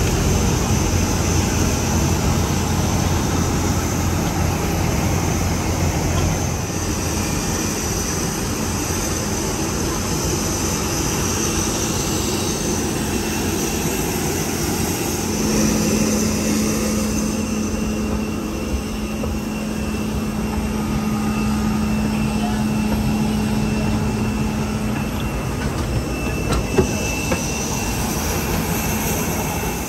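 Airport apron bus running, a steady engine and road rumble heard from inside the bus, with a low steady hum coming in about halfway through for about ten seconds.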